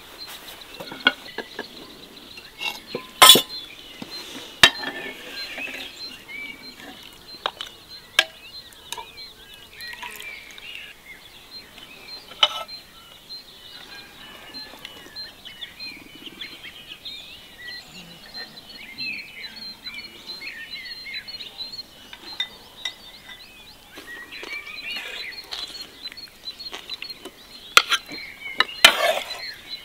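Metal forks and spoons clinking and scraping on earthenware plates and a serving platter, in scattered sharp clinks: the loudest about three seconds in and near the end. Birds chirp steadily behind.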